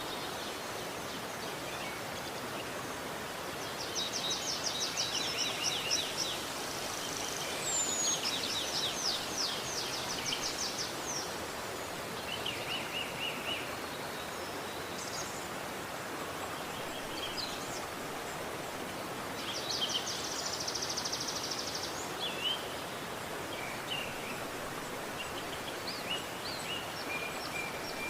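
Steady rush of a flowing river, with songbirds singing over it: rapid high trills about four seconds in, from about eight to eleven seconds and again around twenty seconds, and scattered short chirps in between.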